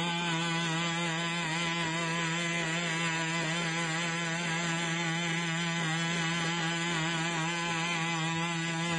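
Boston Dynamics BigDog quadruped robot's small two-stroke engine, which drives its hydraulic pump, running with a steady drone as the robot walks, its pitch wavering slightly.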